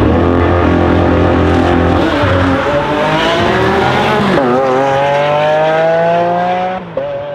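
Lamborghini Aventador's V12 accelerating hard, the engine note climbing in pitch with a gear change about four and a half seconds in and another near the end, after which it fades as the car pulls away.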